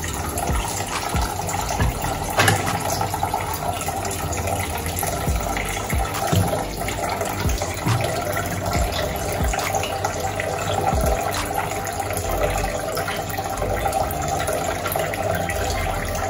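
Water running steadily from a kitchen tap into a sink, with a few short knocks as things are rinsed and handled under it.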